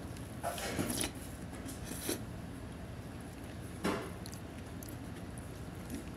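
Eating from a bowl of oyakodon with natto: a few short scrapes and knocks of a plastic spoon against the ceramic bowl, in a cluster about a second in, once at about two seconds and once near four seconds, over steady room noise.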